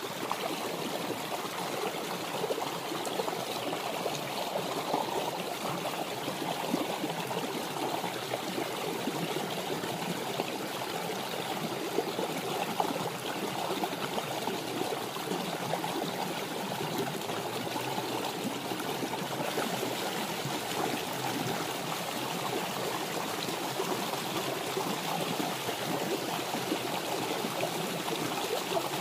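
Shallow rocky stream running over stones, a steady rush of water, with two brief clicks about twelve seconds in.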